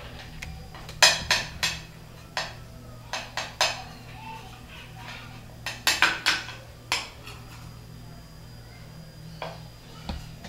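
A metal spoon clinking and knocking against a metal baking pan while spreading batter. The sharp clinks come in two clusters, about a second in and around six seconds in, with a steady low hum underneath.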